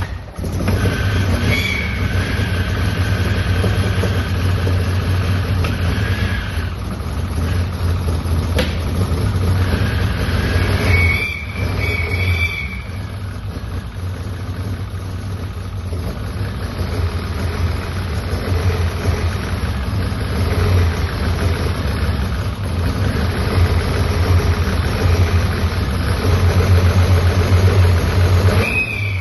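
Turbocharged Ford Pinto four-cylinder engine running just after its first start, a steady low drone. It settles quieter about a third of the way through and builds again toward the end.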